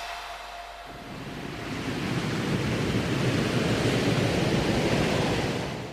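Ocean surf: a steady rushing wash of breaking waves that swells up about a second in and fades out at the very end.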